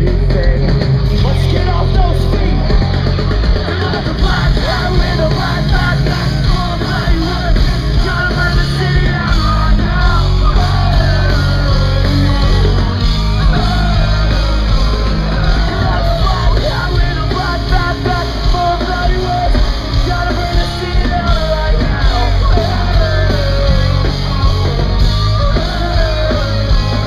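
Pop-punk band playing live and loud: electric guitars, bass and drums, with a singer's voice coming in over them.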